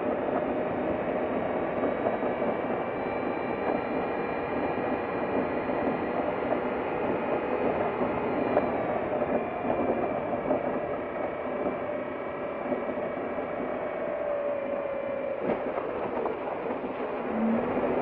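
Vehicle driving along a gravel dirt road: a steady rumble of engine and tyres, with faint tones that slowly drift in pitch and a brief knock about fifteen seconds in.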